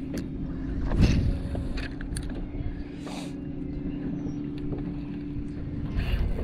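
Electric trolling motor on a bass boat humming steadily, stopping near the end, over wind and water noise with a knock about a second in.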